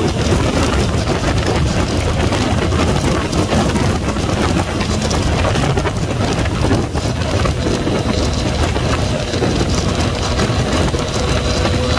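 Wind rushing over the camera microphone on a moving Yamaha MT-09 motorcycle, with its inline-three engine running steadily underneath. A faint whine creeps in during the last third, rising slightly in pitch.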